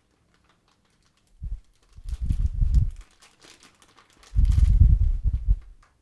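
Small clear plastic bag crinkling and rustling as it is opened and connectors are taken out of it, in three bursts, the loudest near the end, each with a heavy low rumble of handling.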